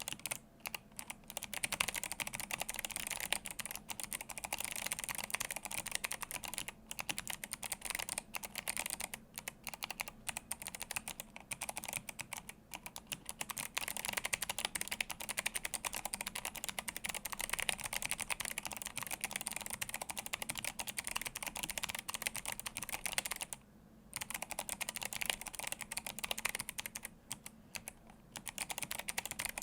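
Steady fast typing on an Atreus62 handwired mechanical keyboard with clicky Kailh Box Jade switches and blank PBT keycaps: a dense run of sharp key clicks, broken by two short pauses near the end.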